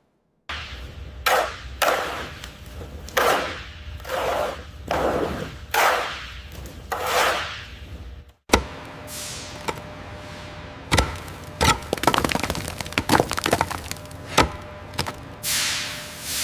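Hand-work noises: a run of swishing strokes about one a second, each sliding down in pitch. After a sudden cut a little past the middle come sharp clicks and knocks over a low steady hum.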